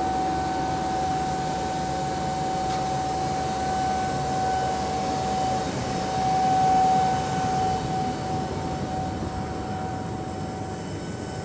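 Boeing 717's auxiliary power unit running: a steady turbine whine with a high whistle over a rushing hum.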